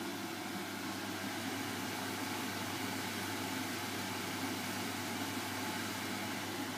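French fries sizzling steadily as they deep-fry in a frying pan of hot oil.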